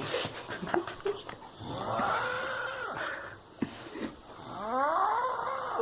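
A drunk person snoring heavily in sleep: two long snores, about a second and a half each, the second rising in pitch as it goes.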